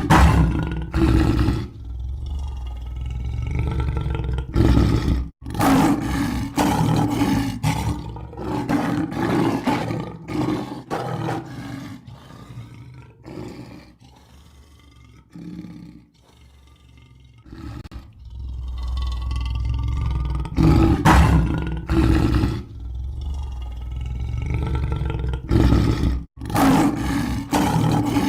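Lion roaring again and again in long, deep calls, with short breaks between them and a quieter stretch about halfway through.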